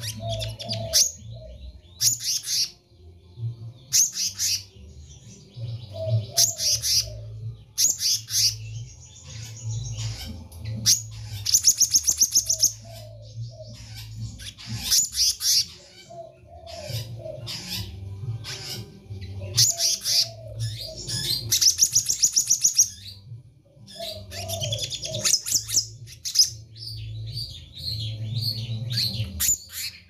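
Black-naped monarch singing: repeated bursts of high, rapid chattering notes every few seconds, with a steady low hum beneath.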